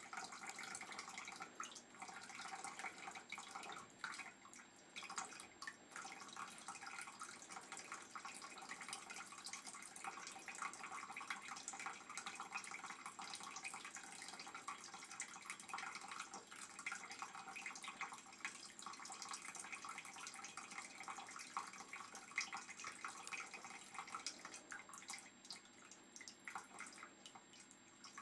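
A small electric tabletop fountain: a thin stream of water trickling and dripping steadily into its bucket and basin.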